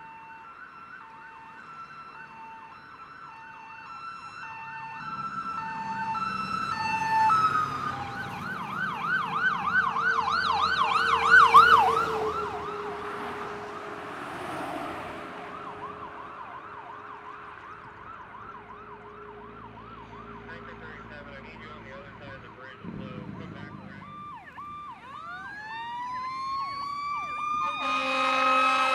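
Emergency vehicle sirens on passing special operations response trucks: first an alternating two-note hi-lo siren, then a fast yelp that grows loud and fades away as the truck passes. Near the end a fire rescue truck's siren winds up in a slow rising wail, with a loud horn blast as the end nears.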